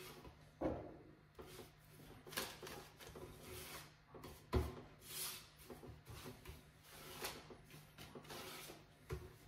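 A brush swishing lacquer over decoupage paper on a wooden drawer front in a run of soft strokes, with a few light wooden knocks as the drawer is handled; the sharpest knock comes about halfway.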